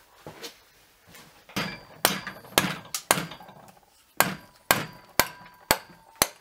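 Bench vise being worked tight on a bicycle crank's cotter pin and a socket to press the pin out. Sharp metal knocks with a short ring, about two a second, start about a second and a half in, pause briefly around the middle, then carry on.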